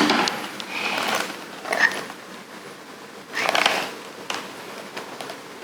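Toy packaging being handled: a few short bursts of rustling and scraping, near the start, about two seconds in and again past three seconds.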